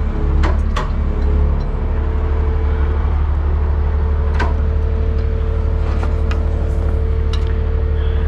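An engine idling steadily with an even low drone, and a few sharp clicks or knocks about half a second in and again about four and a half seconds in.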